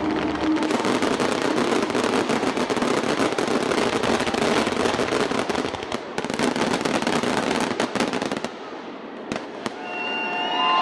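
Fireworks finale: a dense, continuous barrage of rapid crackling and bangs from aerial shells with crackling stars. It thins out abruptly about eight and a half seconds in to a few last isolated cracks.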